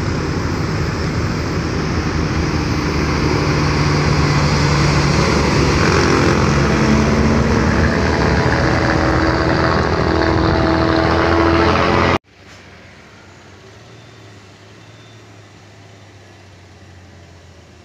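Hino 500 truck's diesel engine working hard up a steep climb, loud, its note slowly rising. About twelve seconds in it cuts off suddenly to a much quieter, steady low engine hum.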